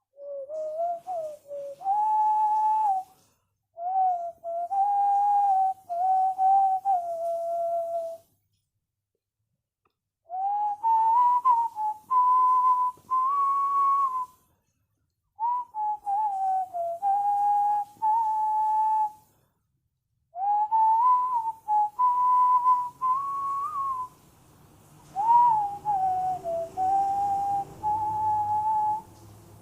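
A person whistling a Bollywood song melody: one clear whistled tone moving up and down, in phrases of a few seconds with short pauses for breath between them.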